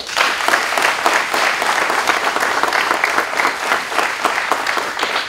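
Audience applauding: many hands clapping, breaking out suddenly and holding steady.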